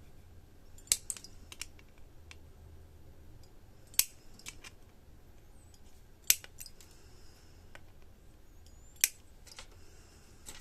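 Flush side cutters snipping the excess resistor leads off a freshly soldered circuit board: four sharp snips a few seconds apart, each followed by fainter ticks.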